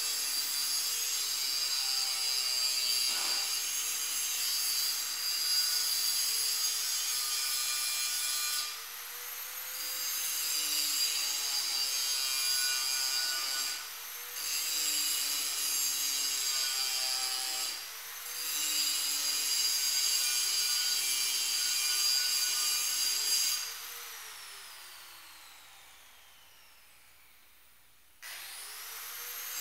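Angle grinder grinding a steel plate, its high steady whine dipping briefly three times as the disc comes off the work. Near the end it is switched off and winds down with a falling whine, then starts up again.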